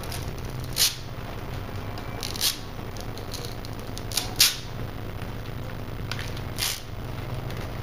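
A squeegee swiping across a vinyl flame graphic and its transfer film on a car hood: about five short, hissy swishes, the loudest about halfway through, over a steady low hum.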